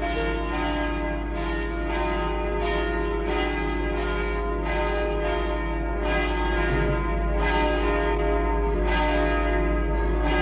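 Church bells ringing in a steady repeating peal, a fresh strike about every two-thirds of a second, over a constant low hum.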